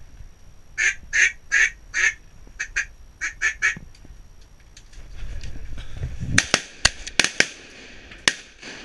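A run of duck quacks, then a volley of about six shotgun blasts from more than one gun, fired at ducks over the pond.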